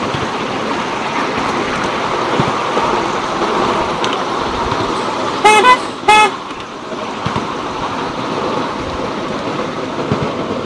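Miniature ride-on railway train running along its track with a steady rattle, sounding two short loud toots of its locomotive's horn about halfway through.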